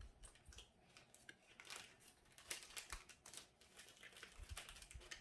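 Faint, irregular rustling and light clicks of trading cards being handled and flipped through by hand.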